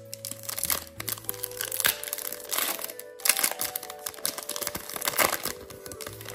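Foil Pokémon booster pack wrapper crinkling and crackling in irregular bursts as it is handled and opened, over soft background music.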